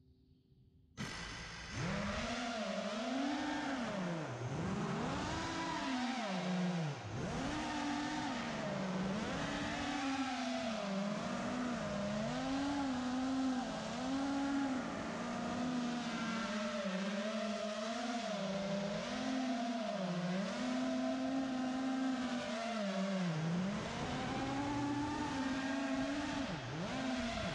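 The brushless motors and propellers of a 5-inch freestyle FPV quadcopter (Ummagawd Moongoat), recorded by the GoPro riding on it. They spin up about a second in, then whine continuously, the pitch swooping up and down with the throttle. The sound falls away right at the end.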